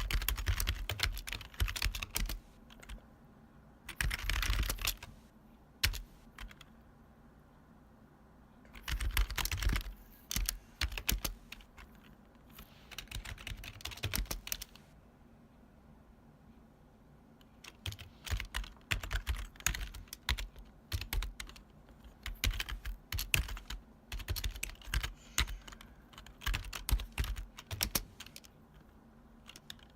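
Typing on a retro keyboard with long key travel, heavily clacky keys clattering in quick runs broken by short pauses of a few seconds.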